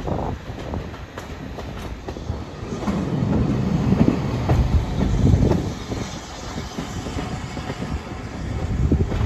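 Steam-hauled passenger train heard from a carriage window: the coach wheels rumble and click over the rail joints, growing louder a few seconds in.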